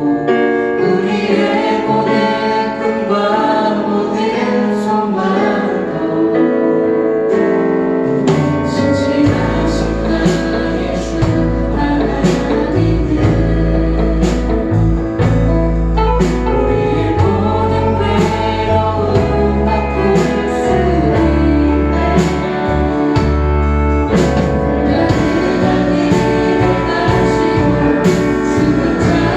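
Church praise team singing a Korean worship song in chorus with a band; a bass line enters about eight seconds in, and drums keep time.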